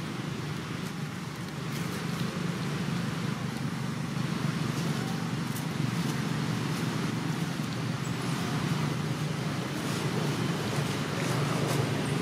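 Steady low rumble of background noise with a few faint ticks.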